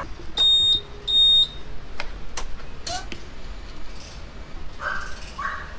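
Two short, high-pitched beeps from a Honda Click 150 scooter's electronic beeper, about half a second and a second in, followed by a few sharp clicks a couple of seconds later, as the scooter is switched on to test that the fuel pump draws fuel through a newly fitted fuel filter.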